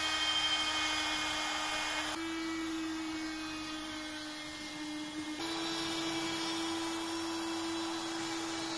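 Compact trim router running at full speed, trimming excess HPL laminate flush along a panel edge: a steady high-pitched whine whose pitch jumps slightly twice.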